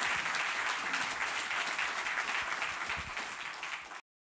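Audience applauding, a dense patter of many hands clapping that eases slightly and then cuts off abruptly near the end.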